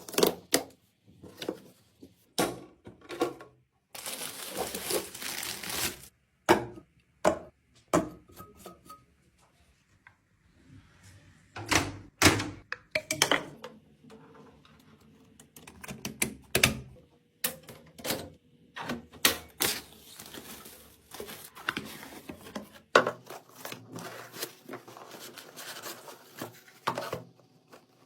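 Computer parts being handled and fitted together: irregular clicks, taps and knocks of plastic and metal pieces, with stretches of rustling.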